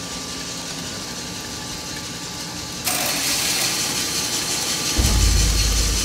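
Coffee roaster running with a steady hum; about three seconds in, the freshly roasted beans are discharged from the drum at the end of the roast and pour into the cooling tray with a sudden rushing rattle. Near the end a deep rumble joins in.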